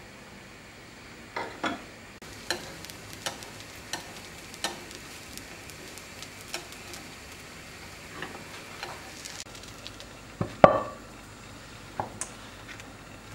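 Thin pancake batter frying in a hot pan with a faint, steady sizzle, while a cooking utensil clinks and taps against the cookware at irregular intervals. The loudest knock comes about ten and a half seconds in.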